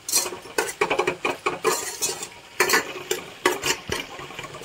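A metal spoon stirring and scraping frying onion-tomato masala in a metal pot. The spoon clinks and scrapes against the pot in quick, irregular strokes.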